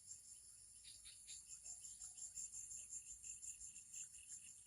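Faint insect chorus, cricket-like: a steady high trill with a regular chirp about four times a second, and a few short falling calls in the first second or so.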